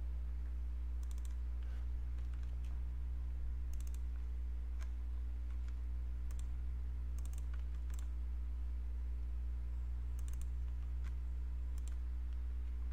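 Computer mouse clicking: a handful of short double clicks spaced irregularly a second or more apart, as folders are opened in a file dialog. Under the clicks runs a steady low hum.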